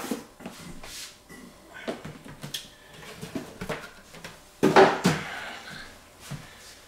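Cardboard packaging being handled: a boxed camera kit lifted out of its outer carton and set down on a glass table, with light knocks and scrapes, and one louder cardboard thump about five seconds in as the emptied outer box is put down.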